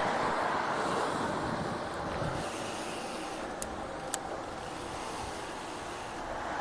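Steady rush of wind and tyres on asphalt as a bicycle rolls along, easing slightly, with two brief clicks in the middle.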